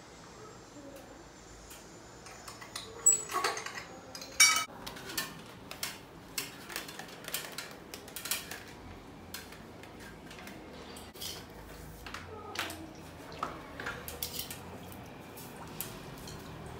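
Scattered metallic clinks, knocks and light clatter of core drilling gear being handled and fitted, loudest about three to four seconds in. The drill motor is not running.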